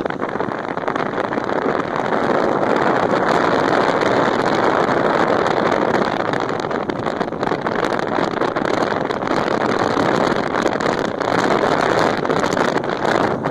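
Steady rush of tyres on a gravel road and wind buffeting the microphone as a 1997 Nissan Pathfinder rolls down the road, growing a little louder about two seconds in.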